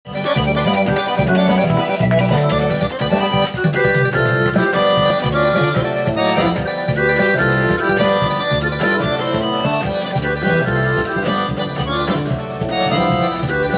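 Music with a steady beat and strong bass, playing loudly and continuously from the very start.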